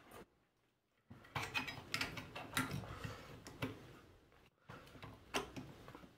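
Light clicks and taps of small plastic and metal parts being handled and fitted at a 3D printer's hotend carriage, in two bursts, the second shorter.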